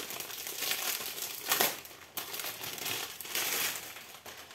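Plastic packaging crinkling and rustling as it is handled, with a louder crackle about a second and a half in.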